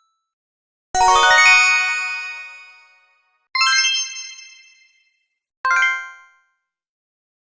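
Three separate magic sparkle chime sound effects, each a bright cluster of bell-like tinkling tones that strikes suddenly and fades away. The first, about a second in, is the longest; the second comes about three and a half seconds in; the third, a short ding near six seconds, is the briefest. Silence falls between them.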